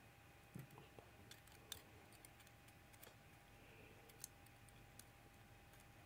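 Near silence broken by a few faint, scattered clicks of metal tweezers handling small brass lock rotors and the lock plug.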